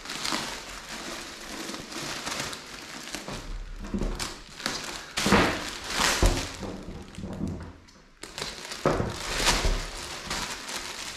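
Clear plastic packaging bag crinkling and rustling in irregular bursts as hands handle a bagged motorcycle body armour, with a few soft thumps as it is moved on the table.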